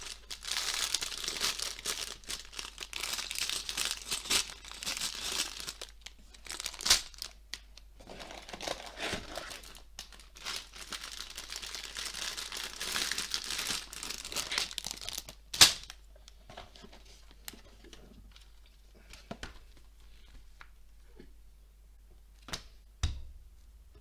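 Lego set packaging handled and torn open by hand: two long stretches of crinkling and tearing, a couple of sharp clicks, then quieter rustling with light taps and a soft thump near the end.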